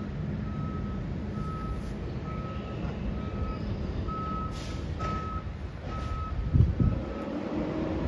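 A vehicle's reversing alarm beeping steadily, about one beep every three-quarters of a second, over a low engine rumble. A heavy thump sounds near the end, and the beeping stops soon after.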